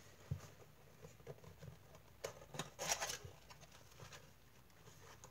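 Hands opening a cardboard trading-card box: faint scattered rustles and clicks of the cardboard, with a louder cluster of rustling about two to three seconds in.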